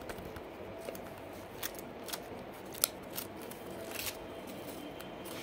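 Paper being handled: stiff drawing-paper flaps rustling and crackling as they are lifted and swung open, with several crisp snaps, the loudest about halfway through.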